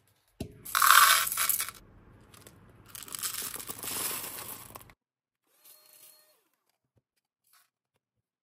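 Small acrylic alphabet cube beads rattling as they are tipped out of a handheld bead vacuum's clear plastic canister into a plastic cup, in two pours, the first louder. Near silence from about five seconds in.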